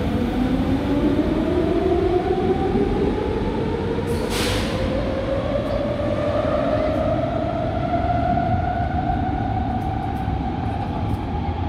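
Metro train accelerating away from the platform, its traction motors giving a whine that climbs steadily in pitch over a heavy rumble of wheels on rails. A short hiss comes about four seconds in.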